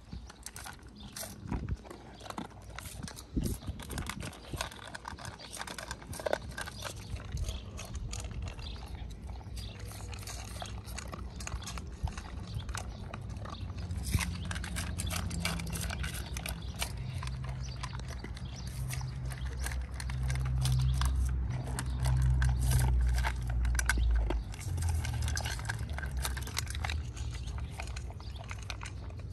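Pit bulls eating kibble and meat from stainless steel bowls: many sharp clicks of chewing, with food knocking against the metal bowls. A low rumble builds in the second half.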